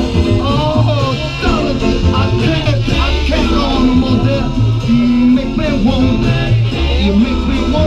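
Soul record with a singer and band, played loud by a DJ over a party sound system.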